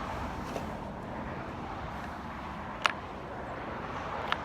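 Steady outdoor background noise, with two short sharp clicks about a second and a half apart.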